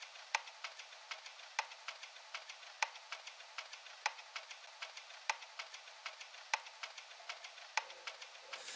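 Vinyl-record crackle as the lead-in of a lo-fi music track: a steady hiss with small clicks and a sharper pop about every second and a quarter.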